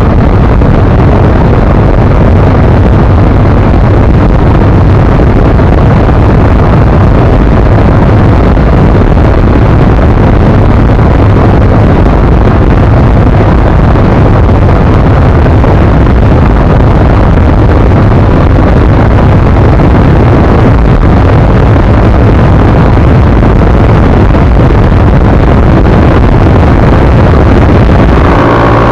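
ZiD 250 motorcycle running at speed, its engine almost buried under loud, steady wind buffeting on the microphone.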